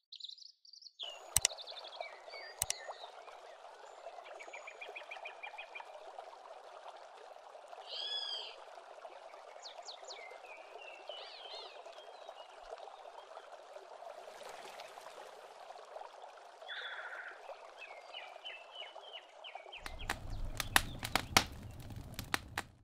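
Outdoor woodland ambience: birds chirping and trilling in short calls over a steady background hiss. Near the end, a low rumble sets in with a quick run of sharp cracks.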